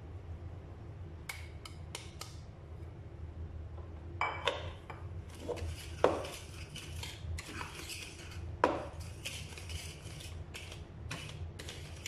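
Kitchenware clatter as flour is tipped into a mixing bowl and an electric hand mixer's beaters are set into it: scattered light clinks and taps, with two sharper knocks about six and nine seconds in.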